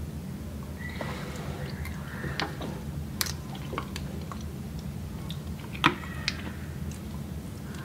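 Fingers prying apart cooked mussel shells: scattered sharp clicks and small cracks of shell, the loudest about six seconds in, over a steady low hum.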